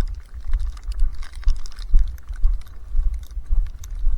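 Footsteps crunching through deep snow at a walking pace, about two steps a second, with wind buffeting the microphone as a low rumble.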